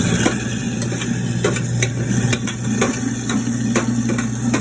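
InSinkErator Badger 5 half-horsepower garbage disposal running with a steady hum while grinding food scraps (leftover stuffing), irregular knocks and clatter over the motor as the food is chewed up. It is working properly.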